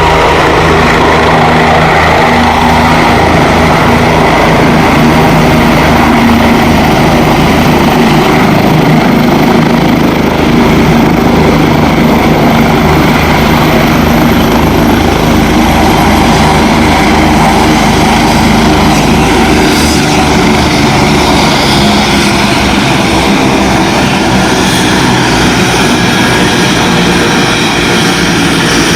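Helicopter flying close, its rotor and engine loud and steady.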